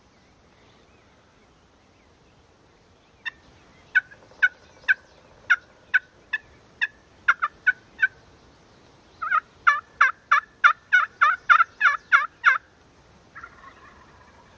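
Turkey call, wet from the rain, sounding hen yelps: a slower run of spaced yelps, then a faster, louder run of about four a second, and a short raspy note near the end. The uploader rates it as bad calling because the calls were wet.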